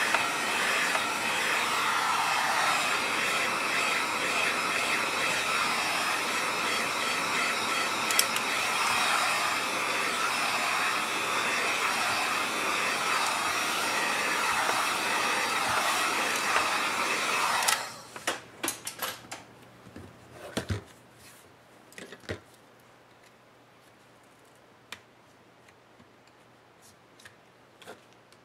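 Hand-held heat gun blowing hot air steadily over a laptop's display lid to soften the adhesive holding the screen panel. It switches off abruptly about two thirds of the way through, followed by scattered clicks and knocks as the plastic lid is handled.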